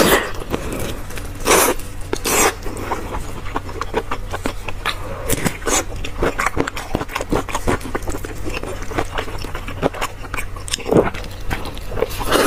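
Close-miked wet, sticky chewing and biting of soft braised pork intestinal fat (cockscomb oil), with many small smacking clicks and louder bursts about one and a half and two and a half seconds in and again near the end. A steady low hum runs underneath.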